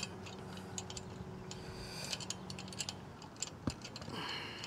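Scattered light clicks and taps in small clusters, thickest about two seconds in and again near the end: handling of the antenna mast and its clamp hardware, or movement on the roof shingles.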